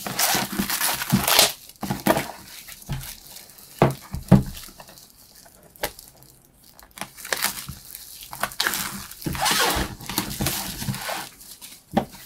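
Scissors cutting the seal on a cardboard product box: crinkling and rustling of the packaging with several sharp snips and clicks in between.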